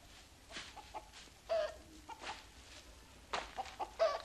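Chicken clucking in a string of short calls, the loudest about a second and a half in and near the end.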